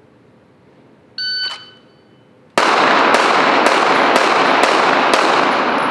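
Shot-timer start beep, then about 1.4 s later six shots from a 9mm Smith & Wesson M&P 2.0 pistol fired about half a second apart, heavy indoor-range reverberation filling the gaps: a timed draw and six-shot Bill drill, finished in 3.96 seconds.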